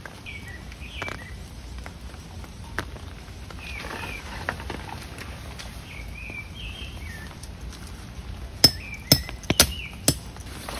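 Birds chirping at intervals outdoors, with a quick run of five sharp metallic clinks near the end.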